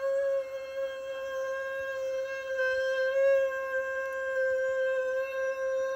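A single sustained musical note held steady at a mid pitch with its overtones, a tone laid over the food shot rather than a kitchen sound.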